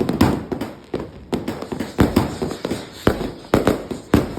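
Fireworks going off in a rapid, irregular string of sharp bangs, about ten in four seconds, each with a short rumbling echo.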